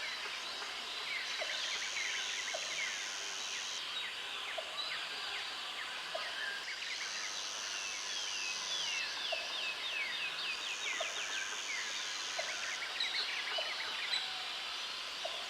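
Forest ambience: many birds chirping and whistling together, with an insect buzzing in stretches of about two seconds that stop and start again, and faint ticks about once a second.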